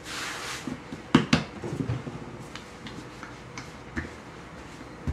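Pastry dough being handled and rolled with a rolling pin on a floured wooden butcher-block counter: a soft rustle of hands on the floured surface, two sharp knocks on the wood about a second in, then the rolling pin rolling with light scattered knocks.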